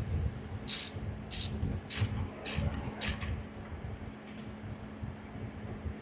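Hand ratchet clicking in about five short strokes during the first half, snugging up bolts, then quieter.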